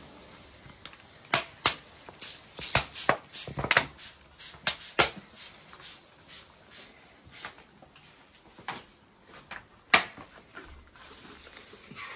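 Hand-held plastic spray bottle squirted again and again over seedlings: a quick run of short, sharp spritzes a few times a second, then a few scattered ones and a single loud one near the end.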